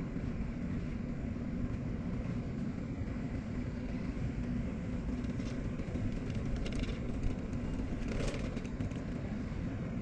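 An engine running steadily with a low rumble, and a few brief higher-pitched noises over it.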